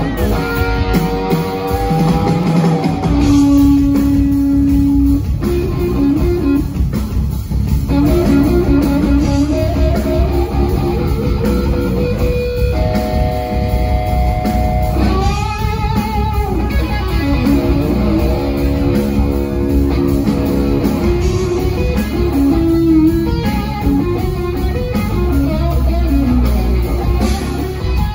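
Live rock band playing: a lead electric guitar holds long sustained melody notes, with gliding pitch bends and a swooping pitch dive about halfway through, over bass guitar and drums.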